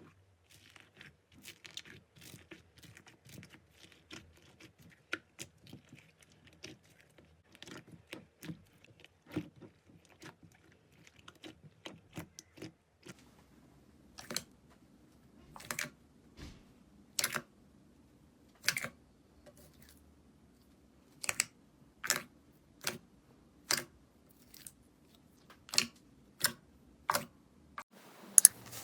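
Slime being handled for ASMR. First comes a run of small, faint crackles and clicks. About halfway in it gives way to about a dozen sharp, louder pops, roughly one a second.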